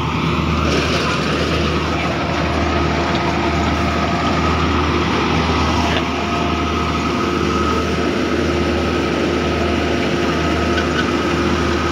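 Crawler-track rice combine harvester running: a steady engine drone with a constant high whine from the machine over it.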